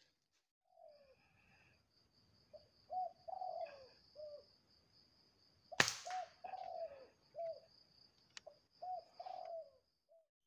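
Spotted dove cooing: a series of short, falling coos in two runs. A steady high-pitched whine sits underneath, and there is one sharp click about six seconds in.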